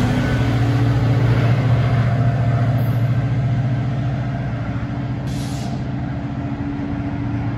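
Diesel locomotive of a GO Transit push-pull commuter train, an MP40PH-3C, running with a steady low drone as it pulls away and slowly fades. Rolling noise from the wheels on the rails is heard at first, easing within a couple of seconds.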